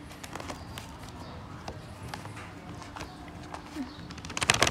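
Light handling noises and scattered small clicks, then a short burst of crinkling plastic near the end as the zip bag of cotton swabs is handled.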